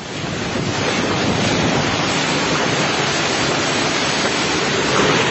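Strong storm wind rushing, a loud steady noise with wind buffeting the microphone.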